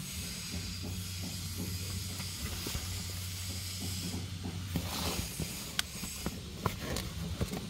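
A green tarp rustling and crackling as it is handled, with several sharp crackles in the second half, over a steady low background rumble.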